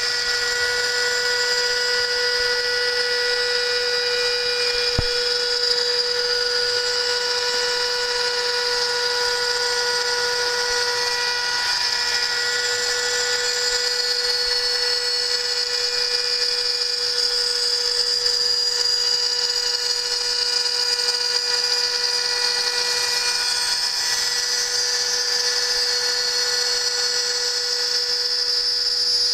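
CNC router spindle milling 5 mm aluminium sheet: a steady high-pitched whine with a bright, hissing cutting noise above it.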